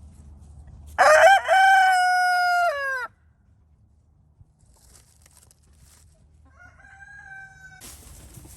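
Rooster crowing: one loud crow about a second in, held and dropping in pitch at the end, then a fainter second crow near the end.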